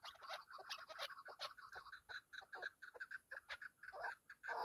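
Chukar partridge calling: a rapid run of short clucking chuk notes, several a second, growing denser near the end.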